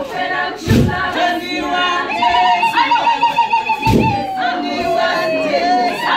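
A group of women singing a traditional Swazi song. One high wavering note is held and slowly falls in the middle, and two heavy thumps come about a second in and about four seconds in.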